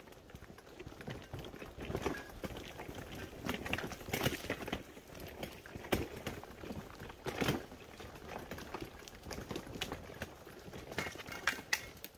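Footsteps along a dirt trail with a hand-pulled wagon clattering over the ground behind, heavier thumps coming every couple of seconds.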